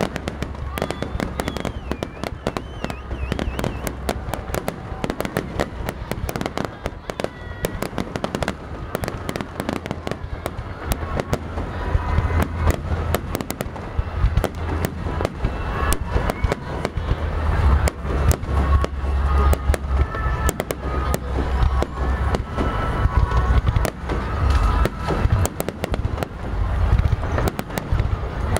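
Fireworks display: dense rapid crackling and popping over a deep booming rumble, building louder about halfway through.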